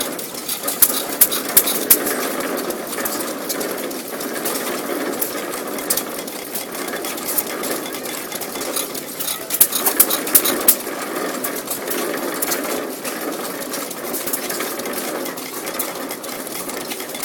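Waterloo Boy-built 2 HP Majestic hit-and-miss gasoline engine running and turning a small Majestic concrete mixer: a steady mechanical clatter, with bunches of sharp clicks about a second in and again about ten seconds in.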